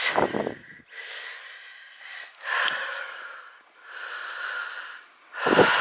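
A person breathing audibly close to the microphone: three noisy breaths in a row, each about a second long. A woman's voice comes in just before the end.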